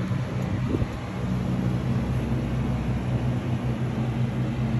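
Steady low hum and rumble of an indoor shooting range's background noise.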